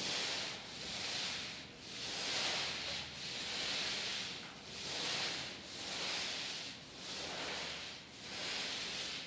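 A paint roller on an extension pole rolling wet paint across a ceiling: a hissing rub that swells and fades with each back-and-forth stroke, about one stroke a second.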